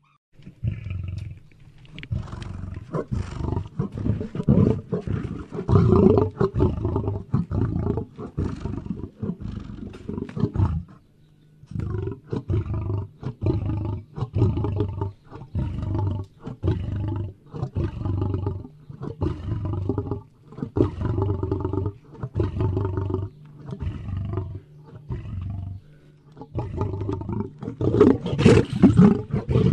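An animal's low, rough vocalizing in repeated pulsing bursts, about one every one to two seconds, with a few short pauses.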